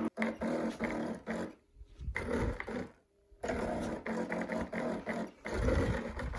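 Stepper motors of a small wheeled robot buzzing with a steady whine in several short runs with brief pauses between, as the robot turns and drives toward a flashlight beam.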